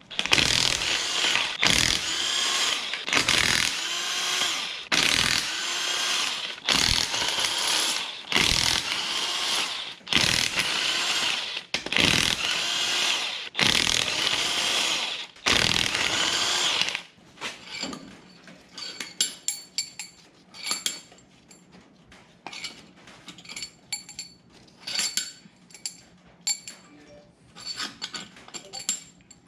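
Powered wrench running in about ten bursts of a second or so each, with short pauses, spinning bolts out of the engine. Over the last dozen seconds, light metallic clicks and clinks as loose parts are handled.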